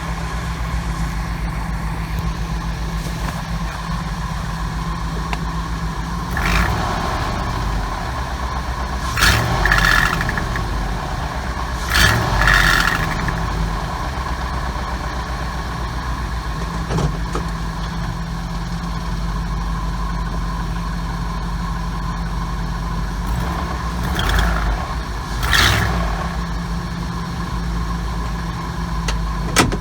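1998 Ford 5.4-litre two-valve V8 running at idle and briefly revved about five times. The engine carries the startup noise that the owner traced to a cracked exhaust manifold between cylinders 6 and 7.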